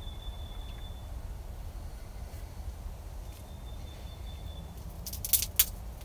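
Outdoor ambience with a steady low rumble, a thin high whistle held for over a second twice, and a quick cluster of sharp clicks about five seconds in.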